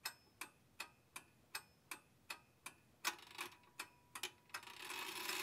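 Clock ticking steadily, a little under three ticks a second. After about three seconds the ticks turn uneven, and near the end a hiss swells up underneath them.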